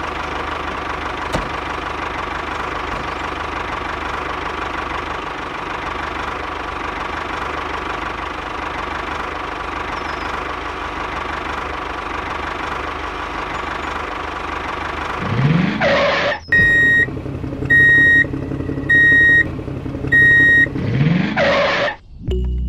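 Steady engine running sound of a miniature walking-tractor model, with a faint steady whine. About three-quarters of the way through it gives way to a rising whoosh, four short electronic beeps about a second apart, and a second whoosh.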